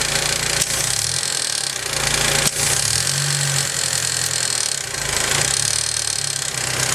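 Honda S2000 four-cylinder engine running, its speed rising and falling a couple of times, with a noise the owner suspects comes from the timing chain tensioner or the valve train. A sharp click comes about two and a half seconds in.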